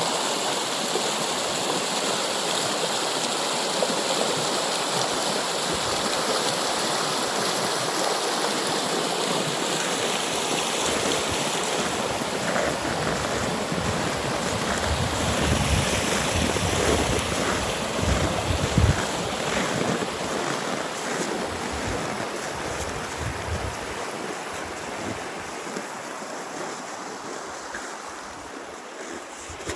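Steady rush of moving water, like a stream or waves, with gusty low rumbles of wind on the microphone around the middle. It slowly grows quieter near the end.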